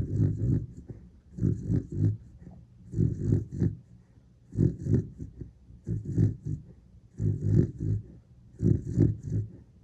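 Sleeping dachshund snoring: a rough, rattling snore about every second and a half, seven in all, with a wild-boar-like grunt to it.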